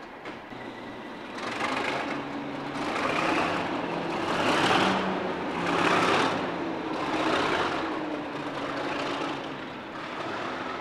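DRS Class 37 diesel locomotive's English Electric V12 engine opening up as it pulls away, the sound swelling in waves about every second and a half from a second or so in.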